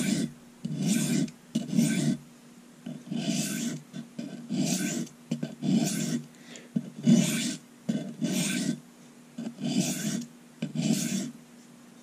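Victorinox Tinker's stainless steel blade stroked along a Norton fine India sharpening stone to refine the burr after the edge bevel was laid back. About nine strokes come roughly a second apart, each about half a second long, and they stop near the end.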